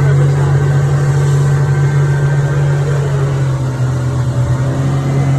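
Boat engine running steadily while the boat is underway, a constant low drone.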